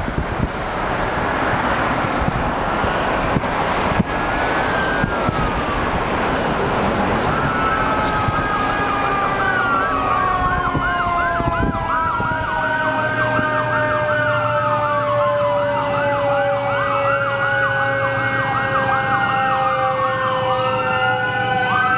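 Traffic noise, then from about a third of the way in, emergency vehicle sirens that rise and fall, switching between a slow wail and a fast yelp, with more than one siren overlapping.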